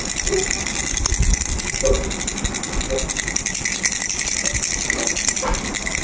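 Pink plastic starfish baby rattle being shaken continuously, a dense, rapid clatter of small clicks.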